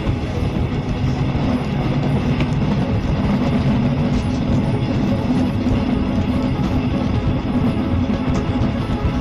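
Running noise of a passenger train at speed, heard at an open window, with wind rushing over the microphone and a steady low hum underneath.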